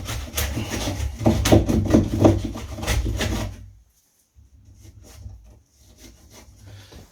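A hand tool scraped rapidly backwards and forwards in the wooden edge of a door, rasping out loose wood from the recess cut for a door latch. The strokes stop about three and a half seconds in, leaving only faint light handling sounds.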